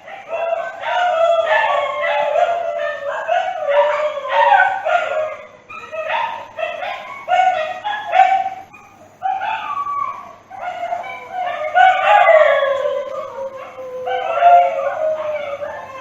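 Dog howling and crying: a continuous run of short wavering cries that rise and fall, broken by yips, with a longer falling howl about two-thirds of the way through.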